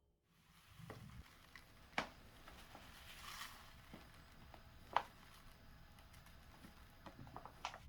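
Kitchen handling noises: two sharp clinks about two and five seconds in, a soft rustle or scrape between them, and a few light clicks near the end.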